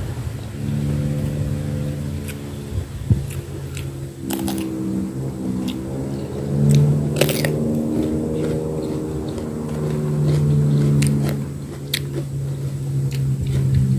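Close-up eating sounds: bites and crunches with scattered sharp clicks, over a louder steady low drone that wavers slightly in pitch.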